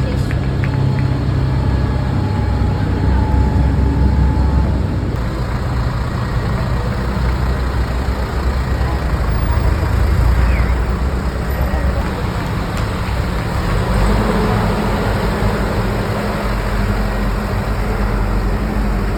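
Steady low rumble of motor vehicles running, with a change in the sound about five seconds in.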